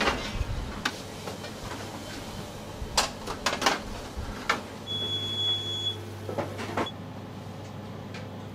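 Kitchen work sounds: scattered sharp knocks and clicks of utensils and equipment, then a steady electronic beep lasting about two seconds, about five seconds in, as a machine hum starts under it.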